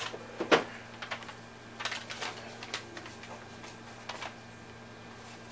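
Paper shooting target crinkling and crackling as it is handled and cut with a cheap balisong (butterfly knife) blade: a string of irregular sharp ticks and rustles, the loudest about half a second in.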